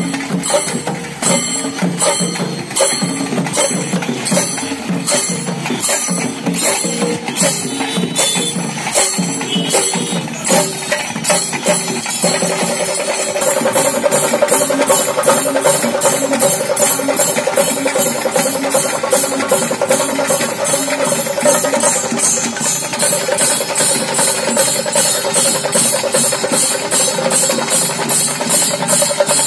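Chenda melam: chenda drums beaten with sticks, together with ilathalam hand cymbals, playing a steady rhythmic beat. About twelve seconds in the playing speeds up into a faster, denser pattern, with the cymbals ringing more strongly.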